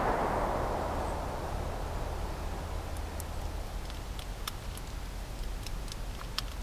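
The echo of a pistol shot fading away over the first second or two, then a scattered series of faint, sharp clicks as loose cartridges are pressed one by one into a pistol magazine.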